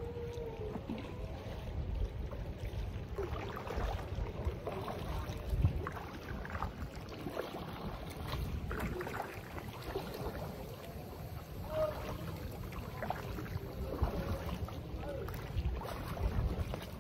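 Paddles dipping into calm water from inflatable sea canoes, with short irregular splashes and drips, over a low wind rumble on the microphone.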